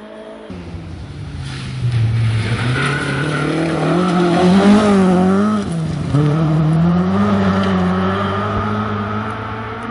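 Mk2 Ford Escort rally car's engine at high revs as it drives past on a gravel stage, the engine note rising and falling with the throttle over a hiss of spraying gravel. It is loudest a little before halfway, dips briefly as the throttle is lifted, then picks up again and fades as the car pulls away.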